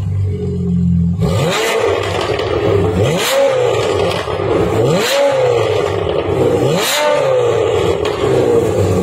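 Porsche 991.1 Carrera 4S's 3.8-litre flat-six, through an aftermarket Fi Exhaust valvetronic system with catless headers and the valves open, blipped from idle four times, about two seconds apart. Each rev climbs quickly and peaks with a sharp bark before falling back, and it settles to idle near the end.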